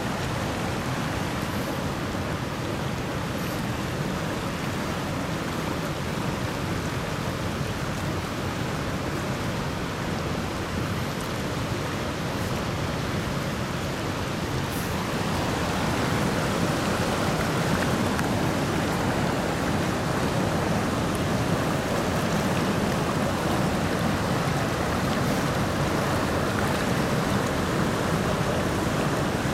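River water rushing over shallow rapids close by, a steady noisy rush that grows a little louder about halfway through.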